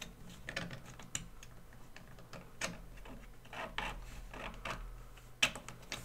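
Light, irregular clicks and taps of 3D-printed plastic parts being handled as a plastic swing arm is fitted onto its metal hinge pin, with one sharper click near the end.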